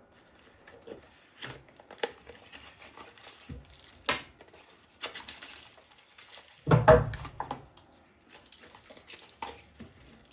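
Steel quick-change tool post holders being handled: scattered light clinks and knocks, with one heavier knock and thud about seven seconds in.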